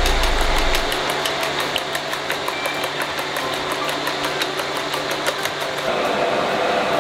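Chopsticks beating eggs in a stainless-steel bowl: a fast, even run of light metallic clicks, several a second, that stops about six seconds in. A steady mechanical hum runs underneath.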